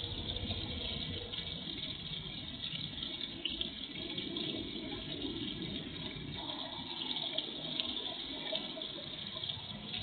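Small garden-pond fountain splashing steadily into the water.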